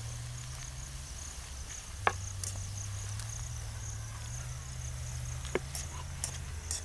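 Insects chirring steadily in a high, pulsing buzz, with two sharp clicks about two and five and a half seconds in, a knife knocking on a plastic cutting board while scoring raw chicken.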